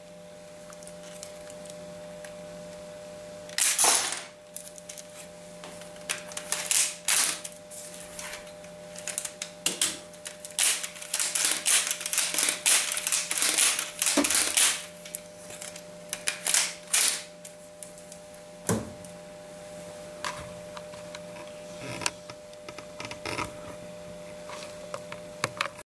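Plastic Lego pieces of a Lego AK-74u gun model clicking and rattling as it is handled and its mechanism is worked. There is a loud clatter about four seconds in, a dense run of rapid clicking in the middle, and scattered single clicks toward the end.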